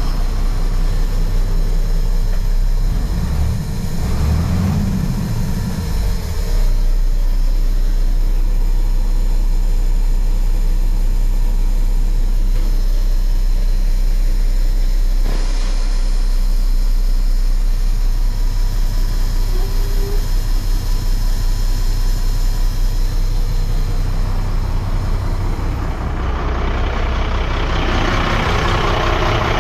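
1997 Ford LN8000 truck's diesel engine idling with a steady low rumble.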